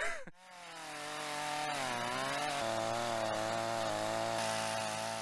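Chainsaw running steadily under load, cutting into a fig-tree trunk, its note dipping and wavering briefly about two seconds in. The sound fades up at the start and fades down at the end.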